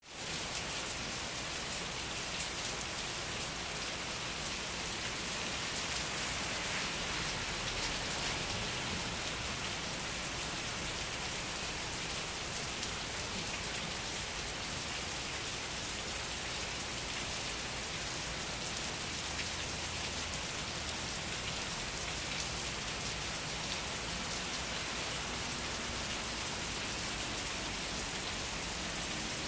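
Heavy rain pouring down steadily, an even hiss that does not let up.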